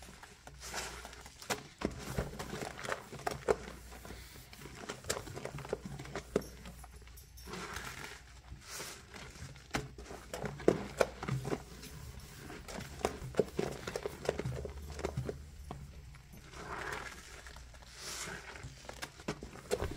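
A handful of soap-soaked kitchen sponges being squeezed and scrubbed against a stainless steel sink: wet squelching and crackling of suds in quick, irregular squishes, with brief pauses between bouts.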